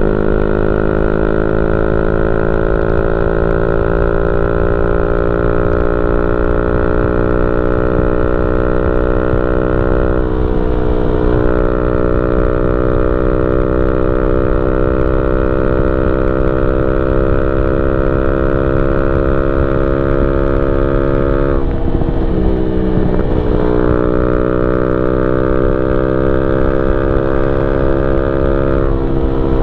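Yamaha Y15ZR 150cc single-cylinder four-stroke engine running through a YY Pang SD3 aftermarket exhaust while riding at speed, heard from on the bike. Its droning note climbs slowly in pitch and breaks to a lower note briefly three times, as at gear changes, over a rush of wind.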